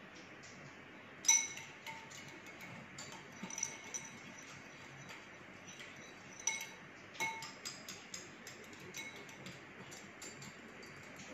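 Small metal wire whisk clinking against the side of a glass bowl as it whisks water, a run of irregular taps with the glass ringing briefly after each. The loudest clink comes about a second in, after a short quiet start.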